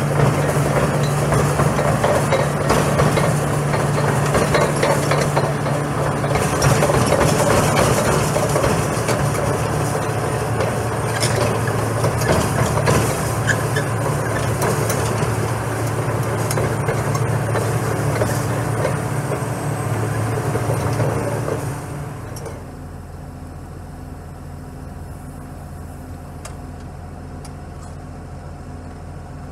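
Diesel engine of a Laurini Muletrax 2500 crawler track carrier running under load as the machine travels, with the clatter of its steel tracks. About three quarters of the way through the sound drops and the engine settles to a quieter steady idle as the machine stops.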